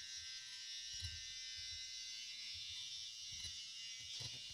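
Quiet room tone: a steady high hiss with a faint electrical whine, and a few soft low knocks.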